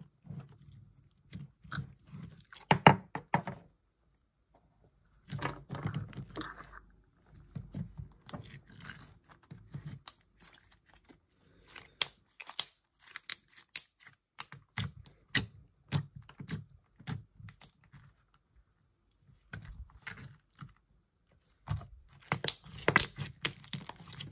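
Hands kneading and stretching a freshly mixed DIY slime, in bursts of sticky clicks, pops and crackles with short pauses between.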